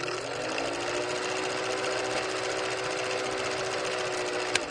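Old film projector running: a rapid, steady mechanical clatter with a motor hum that rises in pitch over the first second as it comes up to speed, then holds steady. A sharp click comes near the end.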